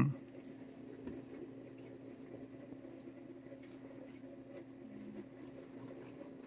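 Faint rustling and scratching of a thick leather work glove stroking a cat's fur, over a steady low hum. A short, loud pitched sound ends right at the start.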